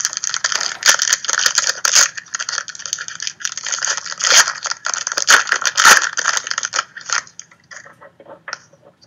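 A trading card pack's foil wrapper crinkling and crackling loudly as it is torn open and pulled apart by hand, thinning to a few scattered clicks near the end.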